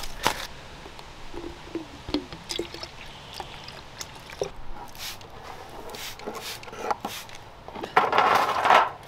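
Liquid poured from a plastic jug into a plastic trigger spray bottle, with small clicks and splashes. Near the end the spray bottle is squeezed, hissing loudly as it mists the copper sheets.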